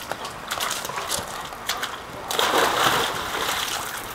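A chocolate Labrador jumps into a swimming pool with a loud splash about two seconds in, followed by water sloshing as it swims. A few light ticks come before the splash.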